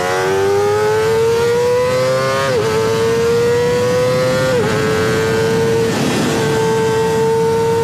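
Kawasaki ZX25R's 250 cc inline-four with a Sphere stainless-steel full-system exhaust, revving high under hard acceleration: the pitch climbs, drops sharply with quick upshifts about two and a half and four and a half seconds in, then holds a steady high note.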